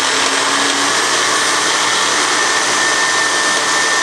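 Magic Bullet personal blender motor running steadily at full speed with its cup pressed down on the base, a whirring hum with a steady high whine. The swapped-in flat blade is turning and blending properly.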